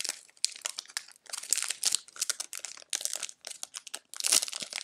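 Cellophane wrapper of a Mosaic football cello pack of trading cards crinkling and crackling irregularly as it is handled and opened.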